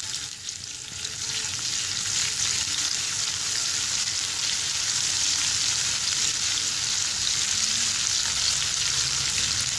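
Ginger-garlic paste frying in hot cooking oil in a kadai, a steady sizzle, stirred with a silicone spatula.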